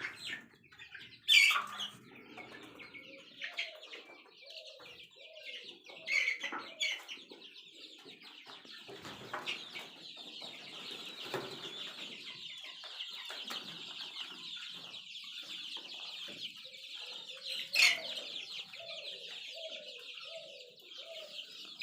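A flock of month-old Sonali chickens calling: a dense, high chorus of peeping with runs of short, lower falling clucks. There are two sudden loud sounds, one about a second in and one near the end.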